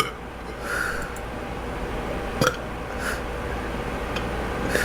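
A woman's short, sudden throat and mouth sounds, a few times, the sharpest a click about two and a half seconds in.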